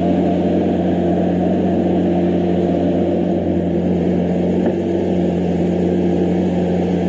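Lamborghini Aventador SVJ's V12 engine idling steadily, its pitch and level unchanging.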